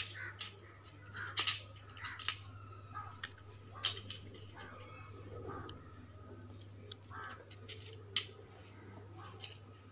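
Gold-painted plastic spoons being handled and set down on a foil-covered board: scattered light clicks and taps, the sharpest about a second and a half in, near four seconds and near eight seconds, over a low steady hum.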